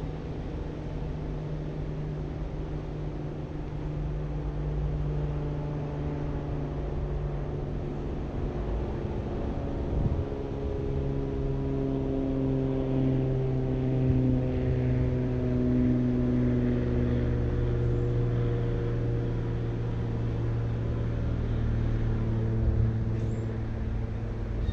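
A car driving along: a steady low engine drone over road noise, its pitch stepping down about eleven seconds in.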